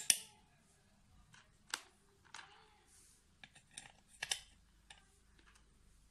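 Irregular sharp metallic clicks and taps of screws being handled and set into the mounting holes of a car's viscous clutch fan during reassembly, the loudest right at the start, with a short scrape about two and a half seconds in.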